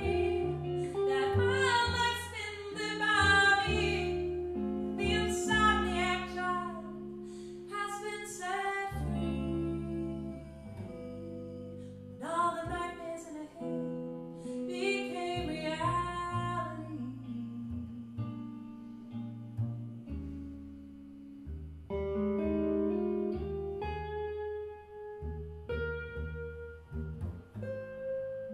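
Live jazz-style song: a woman singing over a plucked upright double bass and an electric guitar. The voice stops a little past the middle, and bass and guitar play on alone.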